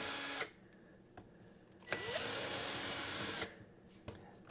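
Cordless power drill-driver running in two short bursts, driving screws: the first run stops about half a second in, and the second starts with a rising whine as the motor spins up, runs steadily for about a second and a half, then stops. A couple of faint clicks come near the end.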